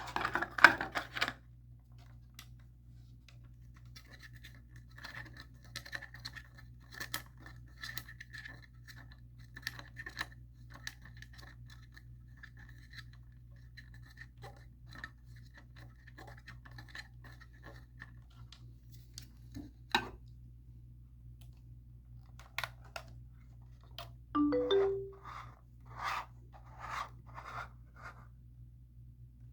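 A stand being screwed into a portable CD player by hand: small clicks, scratches and the scraping of the threads as it turns, with a few sharper knocks about a second in and again around twenty seconds.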